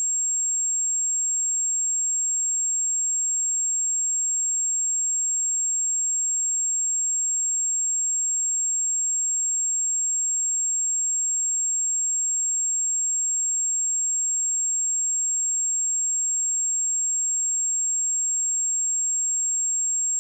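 A pure 7533 Hz sine-wave test tone, a single steady high-pitched whistle held at constant level.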